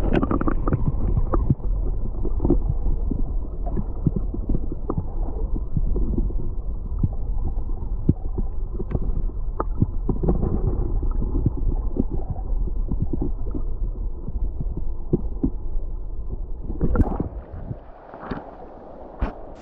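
River current heard through a submerged camera's waterproof housing: a muffled, steady underwater rumble and rush with many small clicks and ticks. Near the end it grows quieter, with a few sharper clicks.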